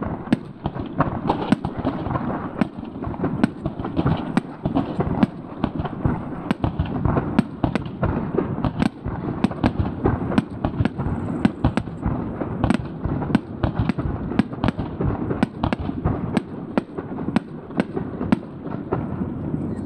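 Aerial fireworks shells bursting in quick succession: a dense run of sharp bangs, about two or three a second, over a continuous rumble of overlapping, echoing explosions.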